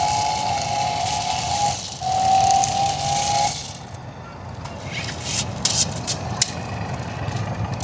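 Radio-controlled drift car running with a steady high whine that breaks off briefly, comes back a little lower and stops about three and a half seconds in. A few sharp clicks and rattles follow.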